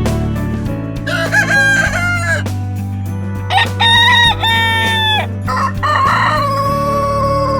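Rooster crowing three times, each a loud cock-a-doodle-doo, the last one long and falling away at the end.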